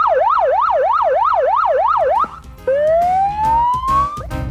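Police motorcycle siren sounding a fast yelp that rises and falls about three times a second, then cutting off. After a brief gap it starts a slow wail that climbs for about a second and a half and stops.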